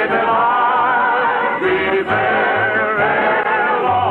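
Orchestral show music from an early-1950s radio broadcast: long melody notes held with a wavering vibrato over a repeating bass line, in the band-limited sound of an old transcription recording.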